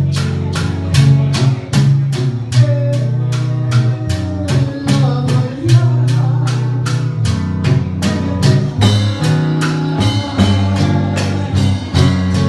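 A band playing Puerto Rican music, with an even percussion beat of about three strokes a second under guitar and other held notes, and a voice singing.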